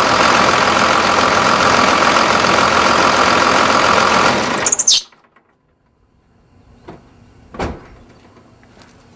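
A 2001 Dodge Ram 2500's 5.9-litre Cummins inline-six turbo diesel idling steadily; it is a healthy engine showing no blow-by. About five seconds in the engine sound cuts off abruptly, leaving faint quiet with two light knocks.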